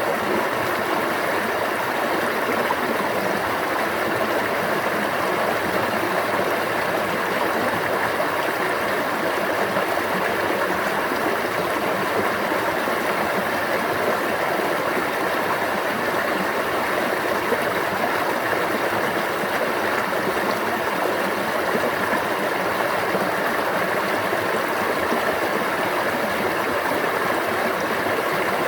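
Stream water flowing, a steady unbroken rush with no let-up.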